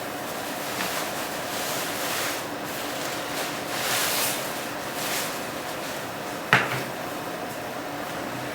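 Handling of a fabric lantern softbox: several soft rustling swells, then one sharp click or knock about six and a half seconds in.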